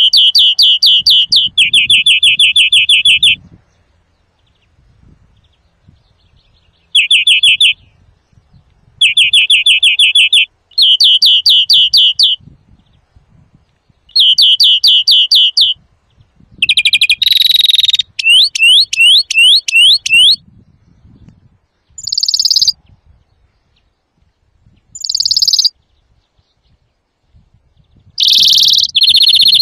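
European greenfinch singing loudly: phrases of fast trilled notes lasting one to two seconds, separated by pauses, with several longer, harsher notes mixed in through the second half.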